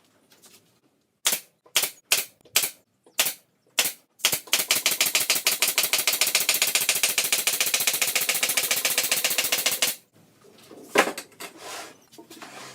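Power tool working on a wooden subwoofer cabinet under assembly: six separate sharp cracks, then about six seconds of rapid, even hammering clicks that stop suddenly, followed by a few quieter knocks.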